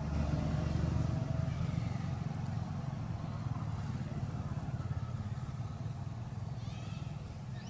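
Steady low rumble of a motor vehicle engine running, with a few short high chirps near the end.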